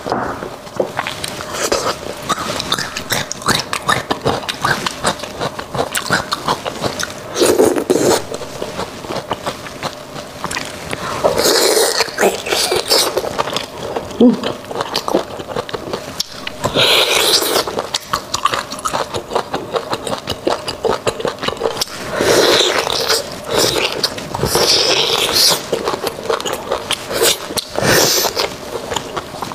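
Close-miked eating sounds of soft, sauce-coated beef bone marrow: wet chewing and lip smacks as a steady run of small clicks, with louder slurping bursts every few seconds.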